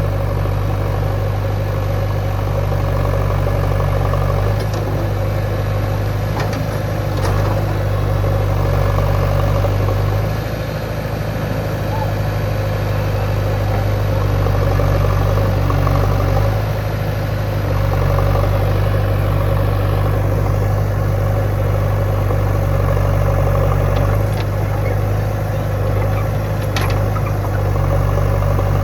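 Backhoe loader's diesel engine running, its level dipping briefly and picking up again several times, with a couple of faint knocks.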